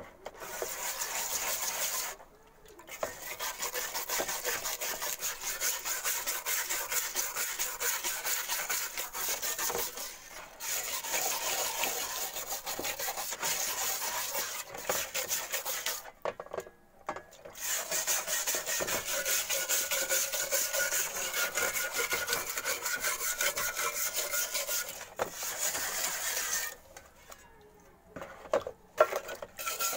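Wire brush scrubbing a rusty steel shovel blade in a bowl of liquid: fast, steady back-and-forth rubbing strokes. There are short pauses about two seconds in, around the middle and near the end, with a sharp knock just before the end.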